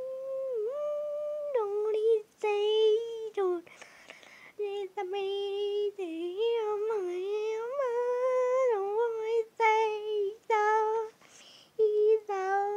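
High-pitched, childlike cartoon voice in a sing-song run of short held notes with brief breaks, heard from a television's speaker.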